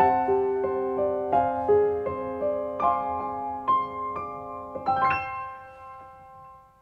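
Slow, soft piano music with single notes and chords held under them, ending on a chord about five seconds in that rings on and fades out.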